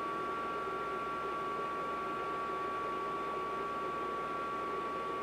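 Built-in extraction fan of a Power Smokeless Grill tabletop electric grill running steadily: an even whirring rush with a thin, steady high whine on top.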